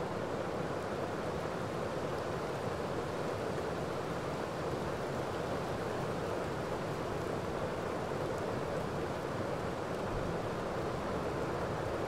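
Small waterfall cascading over rocks into a pool: a steady, unbroken rush of falling water.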